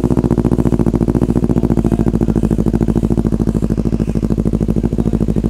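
Kawasaki Ninja 400's parallel-twin engine idling steadily through an aftermarket SC-Project short muffler, giving a deep, bassy exhaust note.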